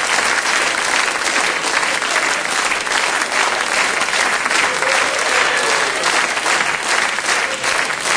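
Live audience applauding steadily, dense clapping without a break.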